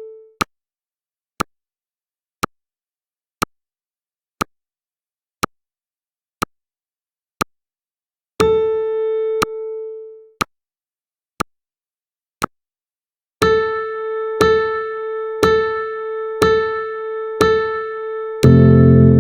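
Countdown timer sound effects: a short electronic tick once a second, a single sustained beep about eight seconds in, then five beeps a second apart and a loud buzzer tone that starts near the end.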